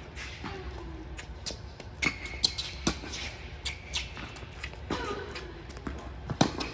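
Tennis rally on a hard court: a string of sharp ball impacts from racquet hits and bounces, with short squeaks of tennis shoes on the court between them. The loudest hit, a close racquet strike, comes near the end.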